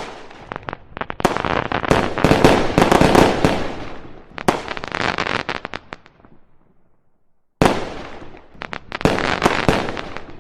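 Fireworks going off in rapid crackling volleys of sharp pops and cracks. They die away to near silence for about a second past the middle, then a sudden loud bang sets off another run of crackling.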